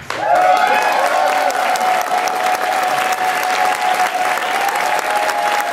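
Audience applauding loudly and steadily as the performers take their bows, with a long high held tone, such as a sustained cheer, running over the clapping.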